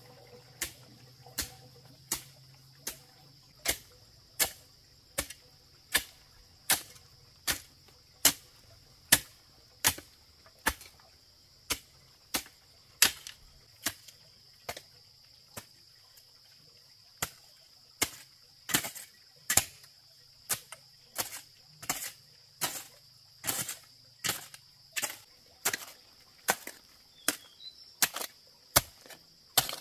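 Repeated sharp chopping strikes of a hand tool, about one every three-quarters of a second in an even working rhythm that comes a little faster and more irregular in the second half. A steady high insect drone runs underneath.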